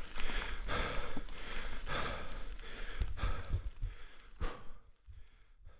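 A mountain biker panting hard after the ride, with short noisy breaths about every half second that die away toward the end. A single knock comes about four and a half seconds in.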